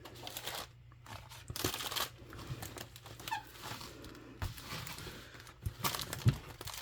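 Plastic packaging of a diamond painting kit crinkling and rustling as it is handled, in irregular bursts.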